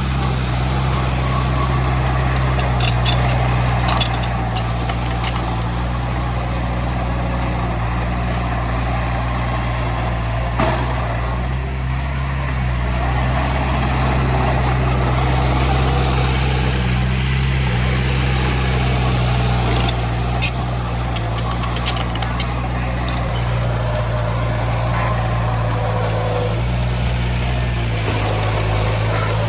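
Heavy diesel engine of earthmoving machinery running steadily under work, with scattered metallic clanks and knocks.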